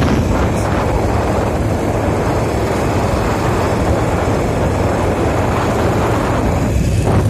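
Steady rush of wind and road noise from a moving vehicle, heavy in the low end and with no clear engine note.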